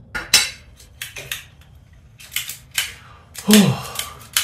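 A small screw being turned by hand into a 3D-printed PLA part: a run of short scratchy creaks and clicks as the screw threads into the plastic. About three and a half seconds in comes a brief voiced sound, falling in pitch.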